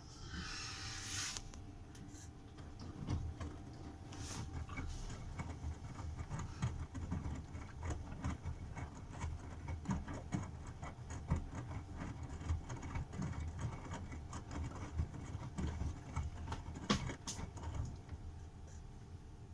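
Bosch washing machine in the wash phase of a 60 °C cottons/coloureds cycle: drum turning, with a low motor hum and many small knocks and splashes as the laundry tumbles in the water. A short hiss about a second in.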